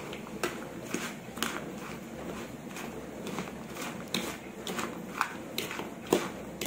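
Steel spoon tossing cut cucumber and raw mango pieces with salt in a plastic bowl: a run of irregular clicks and knocks, roughly two a second, as the spoon hits the bowl and the pieces.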